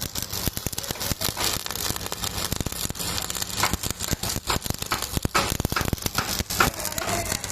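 Arc welding on steel plate: a steady, irregular crackle of many sharp pops.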